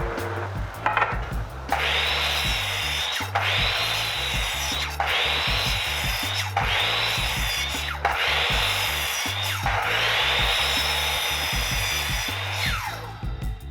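Hand saw cutting wood in about six long, even back-and-forth strokes, each separated by a brief break where the stroke reverses.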